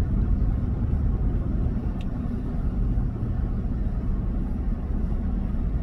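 Steady low rumble, with one faint click about two seconds in.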